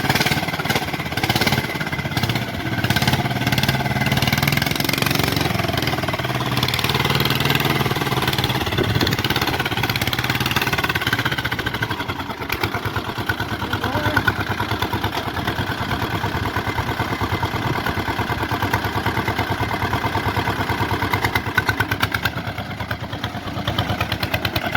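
Small single-engine mini tractor, a home-built Swaraj 855 replica, running and being driven. Its engine note shifts during the first few seconds, then settles into a steady, rapid chugging.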